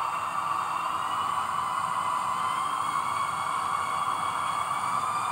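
Sound decoder of a ROCO model of the ÖBB class 1044 electric locomotive playing its running sound: a steady electric hiss with a whine that rises slowly in pitch.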